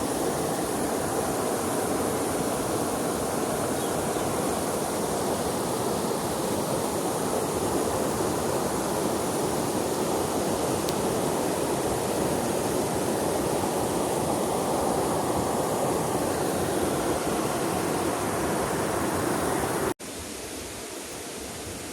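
Flowing river water rushing steadily. About 20 seconds in it cuts off suddenly to a quieter, lighter stream sound.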